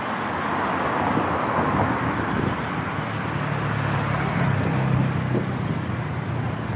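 Street traffic noise, with a motor vehicle's low engine hum swelling in about three seconds in and fading near the end.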